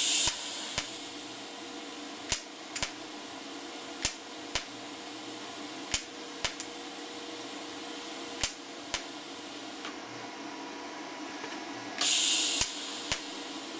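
TIG welder in tack mode at 170 A with a half-second tack time, firing brief arc pulses. Each pulse is a pair of sharp clicks about half a second apart, over the welder's steady hum. A short loud hiss comes right at the start and again near the end.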